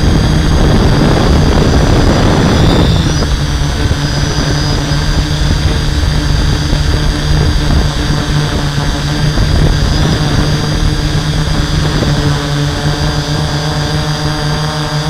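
Hexacopter's six brushless motors and 11x5.5 propellers in flight, a steady droning buzz heard close up from the camera on the airframe. A louder rushing noise sits over the first three seconds or so, then the drone settles to an even hum.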